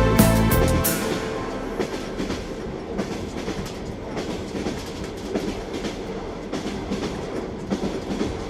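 Train wheels rumbling and clicking over the rails of a moving train, steady and without music after the music stops about a second in.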